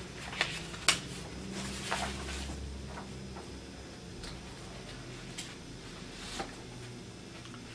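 Papers being handled: scattered light clicks, taps and rustles, about half a dozen, the sharpest about a second in. A low steady hum of room tone lies under them.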